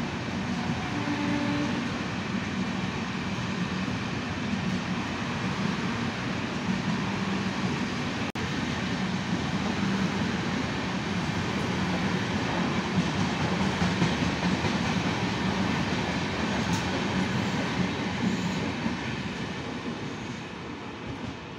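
Express passenger train coaches running past at speed, a steady loud rumble of wheels on rails, with a brief dropout about eight seconds in. It fades over the last few seconds as the end of the train goes by.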